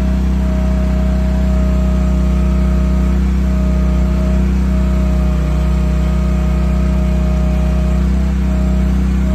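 Chinese mini excavator's small engine running steadily under work, with a steady high whine over the engine note that dips briefly now and then.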